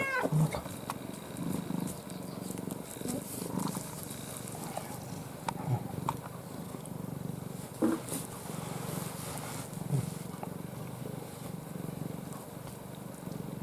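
Domestic cat purring steadily in a low, continuous rumble, with a short meow right at the start.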